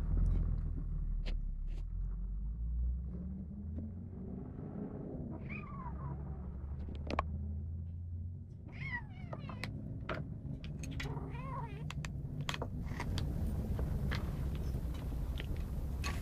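Kitten growling at its food bowl in a low, continuous rumble, broken by a few short, high, wavering cries, with scattered sharp clicks. This is food-guarding: the growl rises as a hand reaches toward its kibble.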